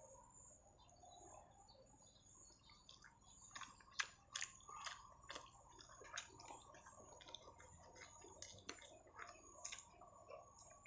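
Faint, close-up eating sounds: mouth smacks and chewing as a person eats rice with his hands, with a run of small sharp clicks through the middle, the loudest about four seconds in.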